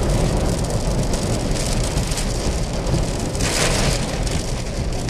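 Rain and gusting wind of a tornadic thunderstorm: a steady rush with a heavy low rumble, swelling briefly about three and a half seconds in.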